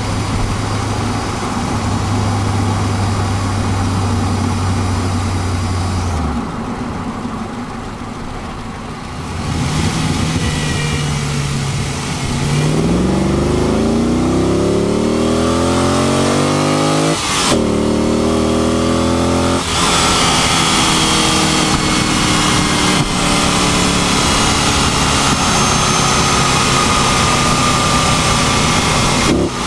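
A steady low drone in a GTO that the owner cannot identify, heard for about the first six seconds and then cutting off abruptly. After a quieter stretch, the engine accelerates with its pitch climbing, drops twice in quick succession as gears change, then settles into steady cruising.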